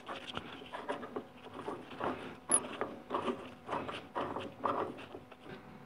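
Wing nut being hand-turned down the threaded rod of a transmission spring compressor, a light scraping rasp repeating about twice a second as the tool is tightened on a 4L60e case.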